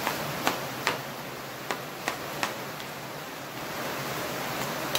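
Chef's knife slicing through tomato and tapping down on a thin plastic cutting mat, about six sharp knocks in the first two and a half seconds and one more near the end, over a steady background hiss.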